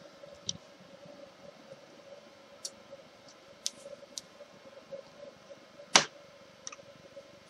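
A flexible magnetic build sheet peeled up from a 3D printer bed and let fall back, giving a few faint light clicks and one sharp snap about six seconds in as it lands flat on the magnetic base. A faint steady hum runs underneath.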